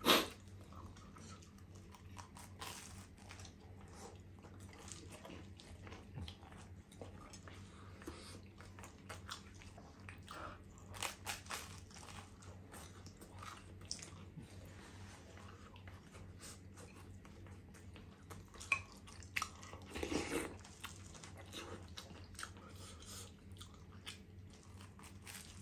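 Close-up mouth sounds of biting into and chewing a grilled ham sandwich: crisp toasted bread crunching in many small crackles. Louder crunches come now and then, the loudest right at the start.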